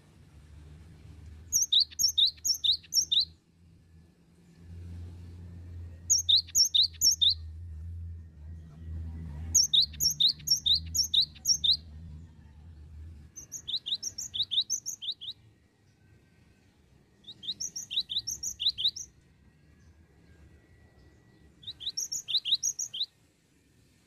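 A cinereous tit (gelatik batu) singing: six phrases a few seconds apart, each a quick run of about four to seven repeated high, sharp notes.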